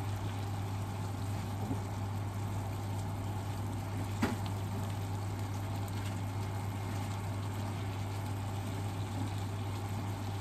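Pork and napa cabbage sizzling in a frying pan over a steady low hum, as long chopsticks stir the food; one sharp tap of the chopsticks against the pan about four seconds in.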